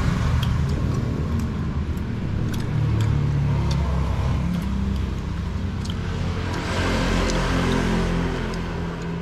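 Road traffic: motor vehicles running past close by, the engine noise swelling about three seconds in and again around seven seconds.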